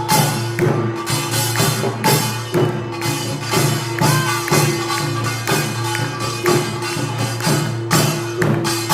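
Korean pungmul (nongak) percussion ensemble playing in a steady rhythm: small kkwaenggwari gongs clanging over drum strokes, with a held ringing tone underneath.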